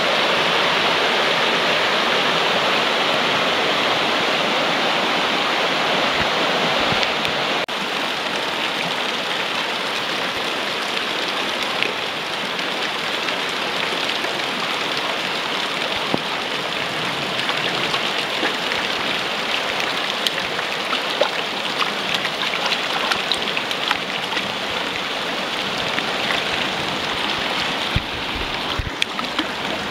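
Clear mountain stream rushing over stones in a steady wash. About seven seconds in it drops a little and becomes a closer babble with many small splashes and ticks.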